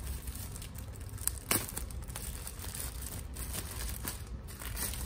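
Thin plastic bag crinkling and rustling as it is handled and pulled open, with a sharper crackle about one and a half seconds in.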